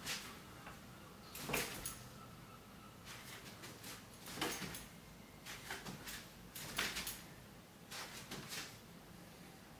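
Air rifle being shot and handled: a string of sharp knocks and clunks at irregular spacing, the loudest about a second and a half in.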